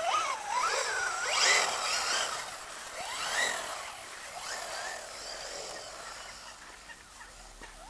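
Electric RC buggy's 1800 kV brushless motor whining as it is throttled on and off, the pitch rising and falling several times. It is loudest in the first two seconds, then fades as the car drives away.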